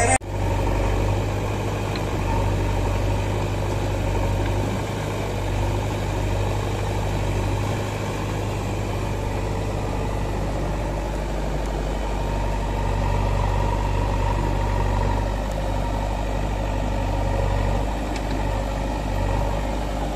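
Heavy diesel engines idling steadily, a JCB 3DX backhoe loader and a tractor side by side.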